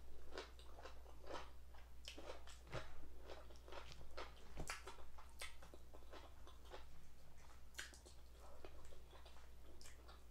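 Chewing and biting fried chicken, with irregular crunches and mouth clicks, over a steady low hum.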